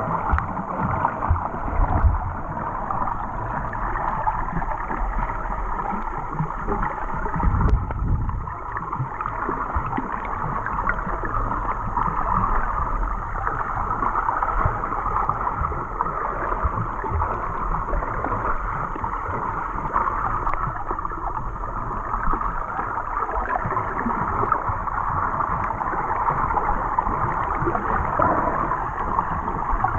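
Muffled underwater water noise picked up by a submerged camera in its housing: a steady rushing and gurgling of the sea, with a few low thumps about two seconds in and again around eight seconds.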